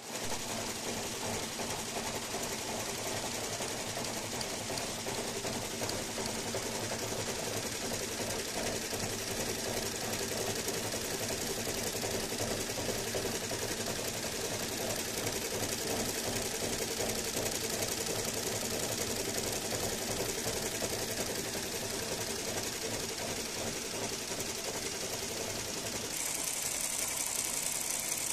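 Multi-needle computerised embroidery machine stitching gold thread into fabric: a steady, rapid, even chatter of needle strokes. Near the end the sound turns hissier.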